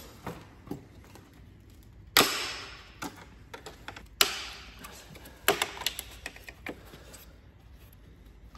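Sharp clicks and knocks of a plastic car front grille being handled and its clips worked. The loudest knocks come about two seconds in and again about four seconds in, with a run of smaller clicks after them.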